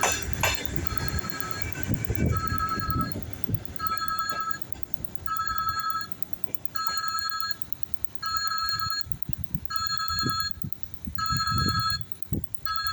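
A railway electronic warning beeper sounding a repeated two-pitch beep, quicker at first and then about one beep every second and a half, over the fading low rumble of a suburban electric train.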